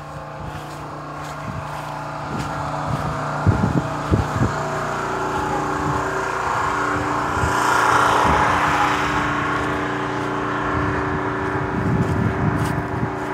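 A motor vehicle passing, its sound building to a peak about eight seconds in and then fading, over a steady low hum. A few sharp knocks come about three and a half and four seconds in.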